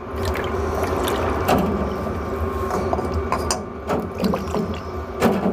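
Ultrasonic cleaning tank running with a steady buzzing hiss of hot cleaning fluid as a Honda VFR400 (NC30) carburettor body is lowered in. Liquid sloshes, and there are a few metal knocks of the carb against the tank.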